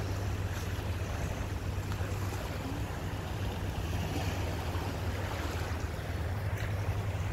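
Shoreline ambience: a steady low rumble of wind on the microphone over a faint wash of water noise.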